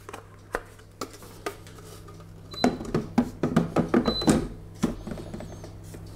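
Stainless-steel mixing bowl of a Monsieur Cuisine Smart kitchen machine being handled and set into its base with its chopping blade: a few light clicks, then a run of metallic clatter and clicks from about two and a half to four and a half seconds in, with two short high pings.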